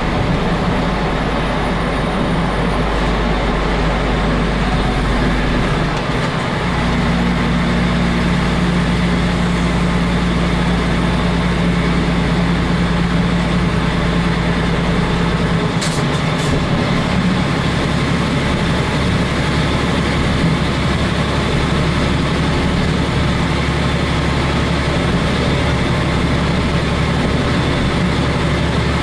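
A semi-truck's diesel engine running under way, heard from inside the cab with the roof hatch open, over steady road noise. The low engine note changes about six seconds in and again around sixteen seconds.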